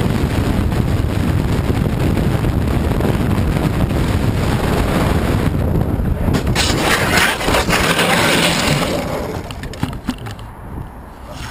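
Car on the road heard through a dashcam microphone: steady road and engine rumble, with a harsh hissing, scraping noise for about two seconds from around seven seconds in, after which it gets quieter.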